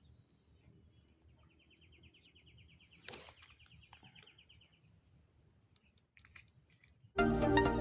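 Quiet outdoor ambience with a steady high whine and a rapid, evenly pulsed trill of chirps lasting a few seconds, a brief rush of noise about three seconds in and a few sharp clicks. Loud electronic music cuts in suddenly near the end.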